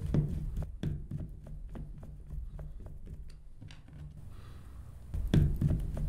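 Light, irregular ticks and taps of a screwdriver spinning a small mounting screw into a nut held by a finger, securing a micro switch in a plastic foot-pedal housing. A low hum runs underneath and grows louder about five seconds in.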